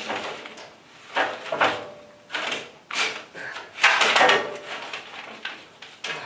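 Work noise from handling parts on the crawler: a run of about six sudden clunks and rattles, each dying away within a fraction of a second.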